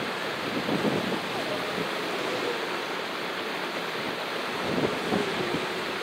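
Steady wind buffeting the microphone over a constant wash of seawater along the shore.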